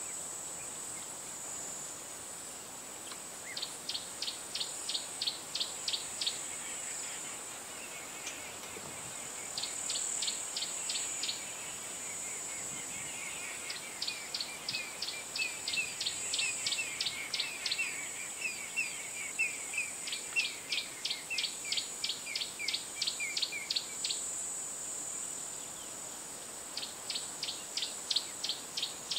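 Bush ambience: a steady high-pitched insect drone, with a bird calling runs of sharp high notes, about three a second, five times over. A second bird twitters lower in the middle.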